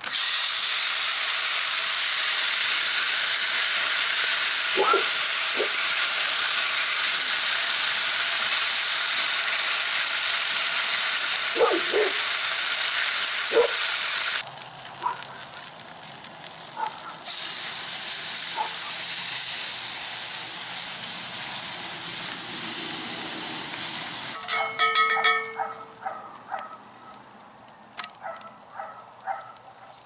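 Raw chicken breast sizzling loudly as it fries in a hot cast-iron skillet over a wood campfire. The sizzle drops away for a few seconds about halfway through, comes back, and dies down a few seconds before the end.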